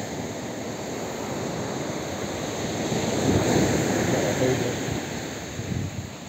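Sea waves breaking on the beach, swelling a few seconds in and then easing, with wind buffeting the microphone.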